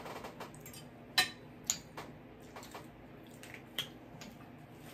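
Utensils clinking against dishes: a few short, sharp clinks, the loudest about a second in, another half a second later and a softer one near the end.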